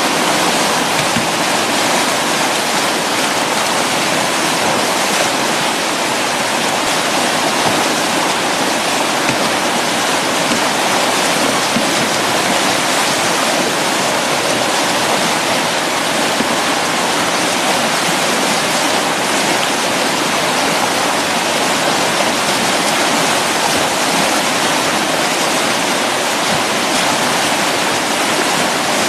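Whitewater rapid rushing loudly and steadily, an unbroken roar of churning, foaming river water.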